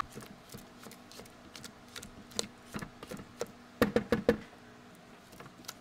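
Scattered light clicks and knocks of kitchen items being handled, with a quick cluster of louder knocks about four seconds in.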